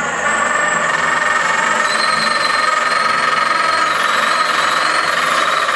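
Winch on a bow-measuring rig being cranked to draw the string of a heavy English war bow: a loud, steady mechanical rattle that starts suddenly about a third of a second in.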